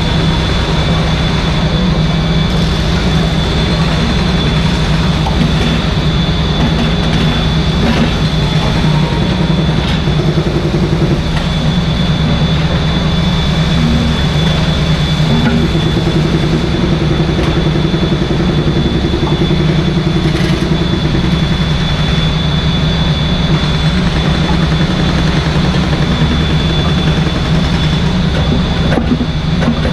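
Mini excavator's diesel engine running steadily at working speed, with a thin, constant high whine over it and short changes in pitch now and then as the machine works.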